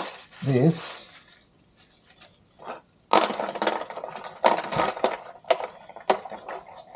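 Small camera-mount parts clicking, knocking and rattling as they are taken out of a foam-lined box and handled, in a dense run of sharp clicks over a rustle that starts a few seconds in.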